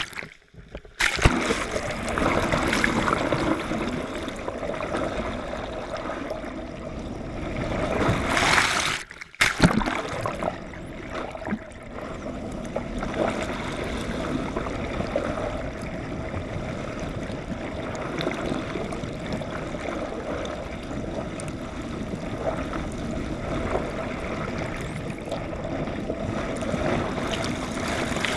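Water rushing past an underwater camera on a pole dragged alongside a moving sailing yacht: a steady churning wash. It plunges in loudly about a second in, and a louder surge builds and breaks off briefly about a third of the way through.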